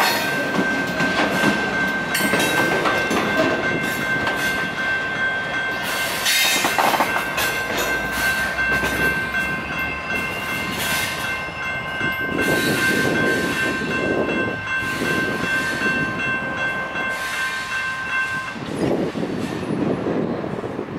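Railroad grade-crossing signal bells ringing steadily while the freight train's cars rumble and clatter through the crossing and move away. The bells cut off a few seconds before the end as the crossing gates start to rise.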